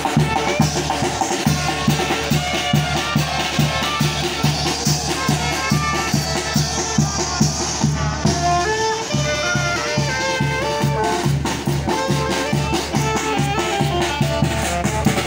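A small live brass band playing a lively tune: several saxophones carry the melody over a steady bass-drum beat with cymbal and snare drum.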